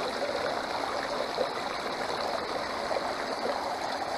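Water running steadily down a gold sluice box, over its riffle mats, and pouring off the end into a bucket.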